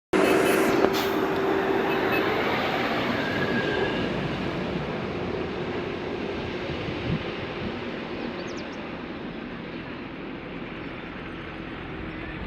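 Steady rumbling noise of a large passing vehicle, loudest at first and fading away gradually as it recedes, with a faint held tone early on.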